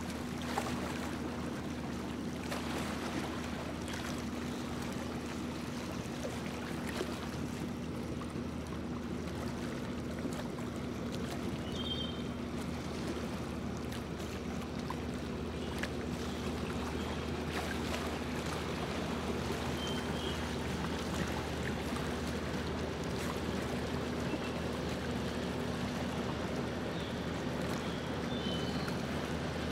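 A tour boat's motor runs steadily with a low drone while water rushes and splashes along the hull as the boat moves across open water. A few faint, short, high chirps come through near the middle and near the end.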